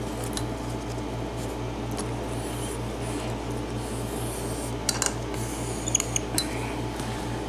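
A few light metallic clicks about five and six seconds in, from picking tools being handled at a pin-tumbler lock cylinder, over a steady low electrical hum.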